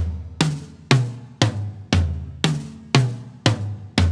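Four Pearl President Deluxe toms (12, 13, 14 and 16 inch) with coated Ambassador batter heads, struck one at a time from the highest to the lowest, twice round, about two strokes a second. Each note rings only briefly, cut short by internal mufflers and tape on the resonant heads.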